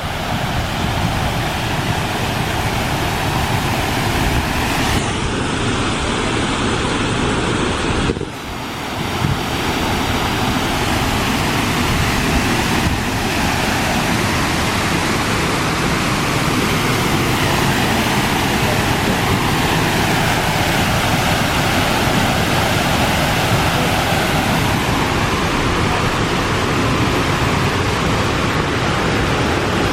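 Steady rush of water falling and splashing from an artificial waterfall, briefly dipping about eight seconds in before continuing.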